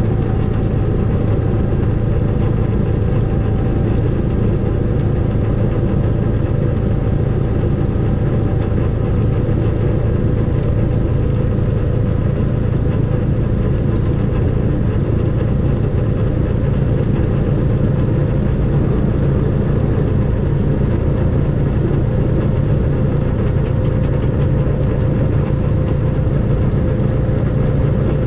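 Snowplough vehicle's engine running steadily at an even pitch, with a deep rumble and a faint constant whine above it.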